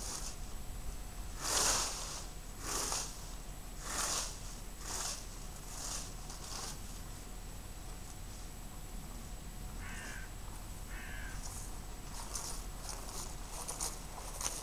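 Plastic leaf rake swept through dry leaves and grass, a rustling swish about once a second, then lighter rustling. Two short crow caws about ten and eleven seconds in.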